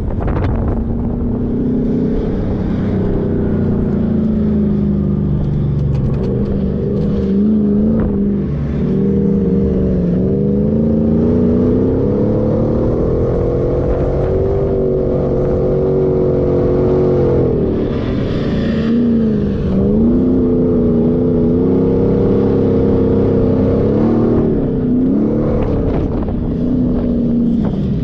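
An off-road 4x4's engine working hard on sand dunes, its pitch rising and falling repeatedly as the throttle is worked, with no let-up.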